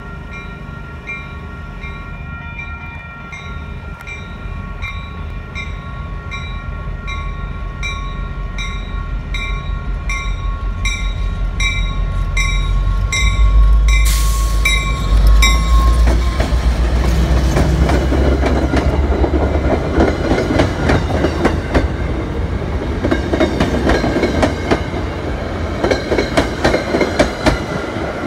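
Railroad crossing bell striking steadily, about one and a half strikes a second, while an MBTA commuter train approaches, its EMD F40PH-2C diesel locomotive's engine growing louder until it passes about halfway through. The bell then drops out under the passing coaches, whose wheels keep up a rhythmic clickety-clack over the rail joints.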